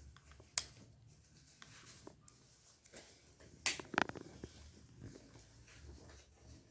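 Small faint clicks and scrapes of a MacBook Air's battery connector being worked loose from the logic board, with a sharper cluster of clicks about four seconds in as it comes free.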